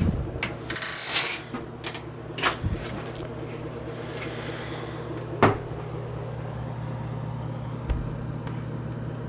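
Scattered clicks and knocks of things being handled, with a short rustle about a second in and a sharp knock midway, over a steady low hum.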